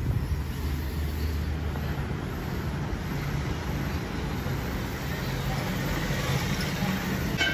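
Steady low machine-shop rumble, with a light metallic clink near the end.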